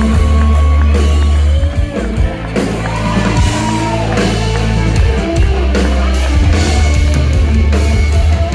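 A live country-rock band playing without vocals. Heavy, sustained bass and drums sit under a lead line of sliding, bent notes.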